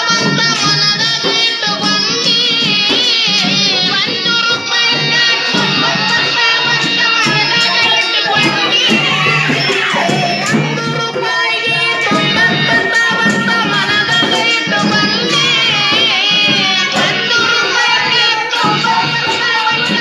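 Folk-style song music: a steady hand-drum and tambourine-like beat under a wavering, vibrato-laden melody line.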